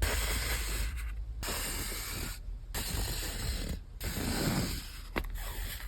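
Crinkling and rustling of stationery packaging handled close to the microphone, in several stretches that break off abruptly, with a few light ticks near the end.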